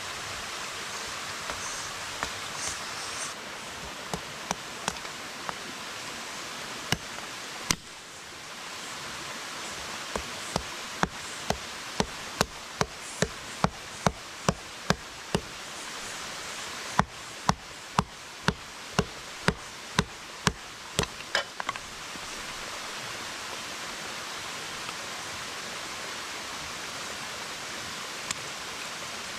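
Machete chopping sticks into kindling on a wooden stump: sharp knocks, a few at first, then a steady run of about two a second that stops a little after the middle. Under it runs the steady rush of a stream.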